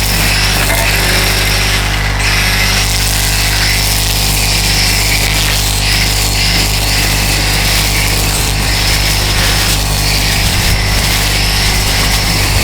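DeWalt DCST922B 20V brushless cordless string trimmer running steadily, cutting weeds.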